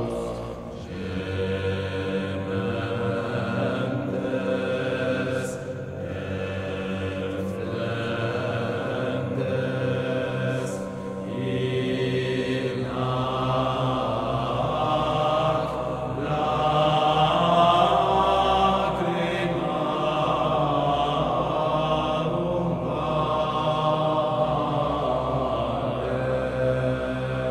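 Slow, chant-like background music with long held sung notes that change pitch every few seconds.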